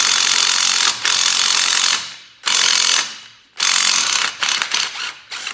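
Cordless impact wrench hammering in repeated trigger bursts as it loosens the 14 mm differential mounting bolts through a swivel socket. One long run opens the sequence, then shorter bursts follow, growing choppier near the end.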